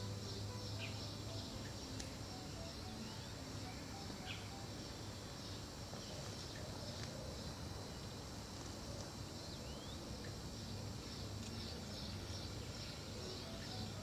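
Outdoor ambience of insects chirping steadily high up, with short bird calls now and then and a low steady hum underneath.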